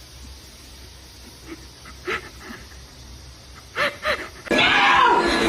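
A few short, squeaky animal cries over faint hiss, the two loudest close together near the end, followed by a sudden switch to a much louder, busier sound.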